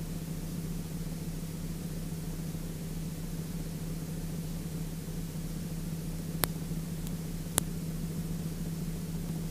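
Steady drone of a Sling 2 light aircraft's engine and propeller in cruise, heard from inside the cockpit under a constant hiss. Two short clicks come about two-thirds of the way through.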